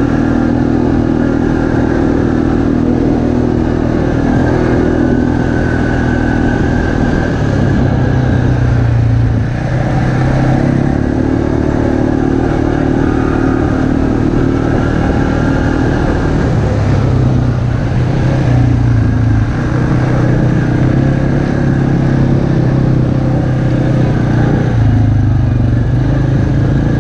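ATV engine running under way on a dirt trail, its pitch stepping up and down several times as the throttle is worked.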